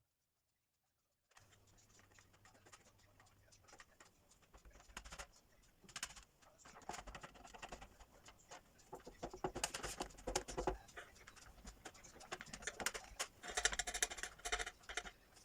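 Kitchen utensils clicking, tapping and scraping in quick irregular strokes, as food is worked in a bowl. The sound starts about a second in and grows busier and louder towards the end.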